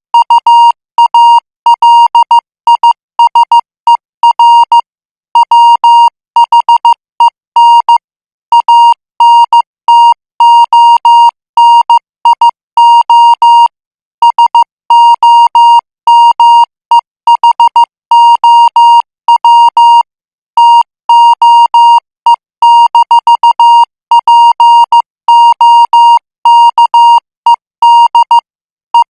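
Morse code sent at 14 words per minute as a single high beep tone keyed on and off, in short and long marks grouped into letters with brief pauses between groups.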